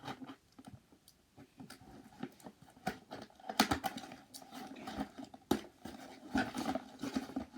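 Cardboard box and packaging being handled and opened: irregular knocks, clicks and rustles, the sharpest about three and a half and five and a half seconds in, with a faint steady hum underneath from about three seconds in.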